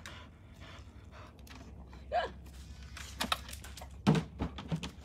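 A few thumps and knocks in a small room, the loudest about four seconds in, with one short squeal that rises and falls in pitch about two seconds in.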